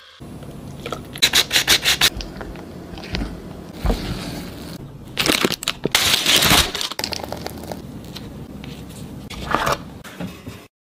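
A plastic piping bag crinkling and rustling as thick batter is handled into it, with a quick run of sharp taps about a second in. The sound cuts off just before the end.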